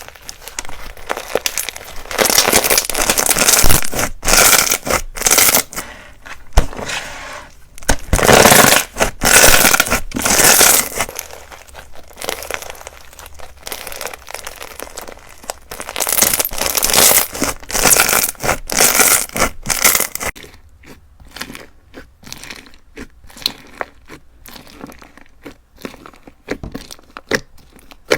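Slime packed with perler beads being handled, making bursts of crackling and crunching that swell and fade. From about two-thirds of the way through, the sound thins out to scattered clicks and pops.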